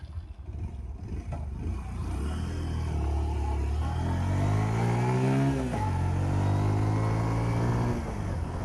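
Freshly repaired motorcycle engine pulling away and accelerating. Its pitch climbs, drops sharply at a gear change about halfway through, climbs again, then eases off near the end. It runs smoothly on a test ride after the repair.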